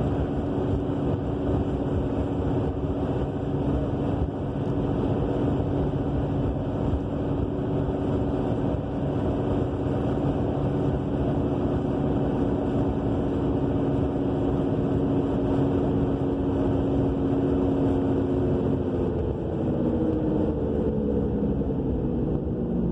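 2000 Subaru Legacy AWD on the move, heard from inside the car: road noise with a steady roaring drone from the rear end that persists despite a new wheel bearing, brakes, caliper and rotor. About 19 seconds in, the drone falls in pitch as the car brakes and slows.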